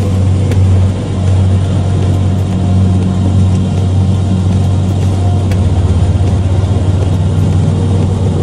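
Light propeller aircraft's engine droning steadily, heard from inside the cabin.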